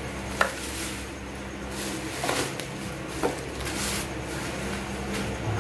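Electrical wiring supplies being handled: a few light knocks, as of a plastic junction box and parts being set down, and two spells of rustling.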